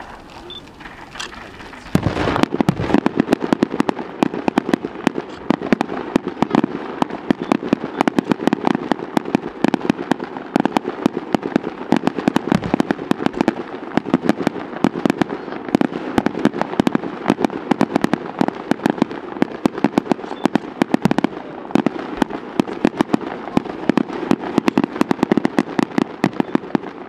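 Aerial fireworks display: about two seconds in, a rapid, dense barrage of bangs and crackling starts and goes on without a break.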